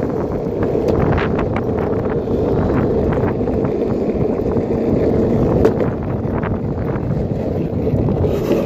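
Longboard wheels rolling over asphalt, a steady rumble, with wind buffeting the microphone.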